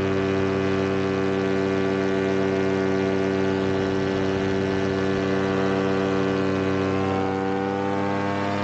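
Paramotor engine droning at steady throttle in flight, holding an even pitch; one of its upper tones rises slightly about seven seconds in.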